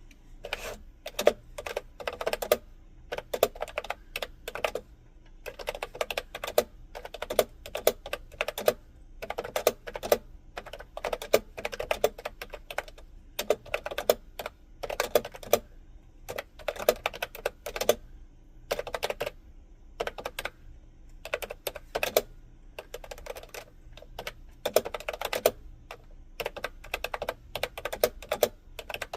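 Typing on a computer keyboard: rapid key clicks in short bursts of several keystrokes, broken by brief pauses.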